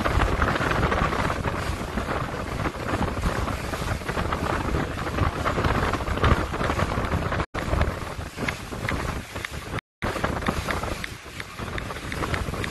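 Wind buffeting the microphone aboard a boat moving across choppy water, with the steady rush of the boat underway. The sound cuts out to silence twice, very briefly, in the second half.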